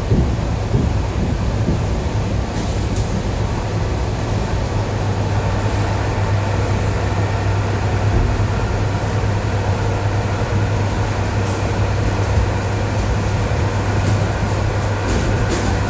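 ED9E electric train running, heard from inside the carriage: a steady rumble with a low traction-motor hum. Its wheels clack over the joints of jointed rail a few times, most often near the end.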